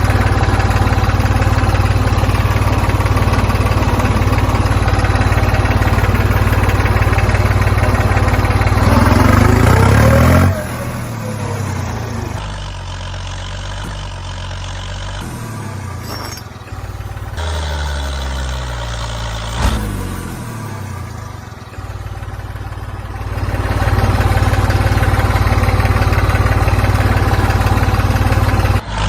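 An engine running steadily, revving up with a rising pitch about ten seconds in, then dropping to a lower, wavering speed before picking up to a steady louder run again for the last few seconds.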